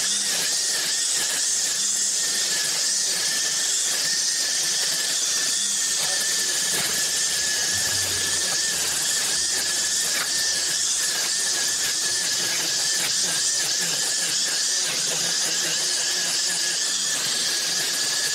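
Battery-powered string trimmer running steadily, a high-pitched motor whine over the hiss of the spinning line cutting through long grass.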